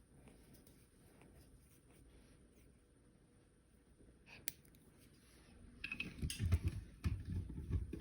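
Nail clipping on a three-week-old French bulldog puppy: faint small clicks, then one sharp clipper snip about four and a half seconds in. Near the end, louder rustling and bumping as the puppy is handled.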